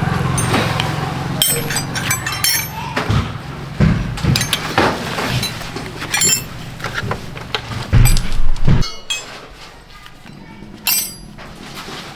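Motorcycle engine idling steadily while metal parts and tools clink and knock, then the engine cuts off suddenly about nine seconds in. A few more clinks follow.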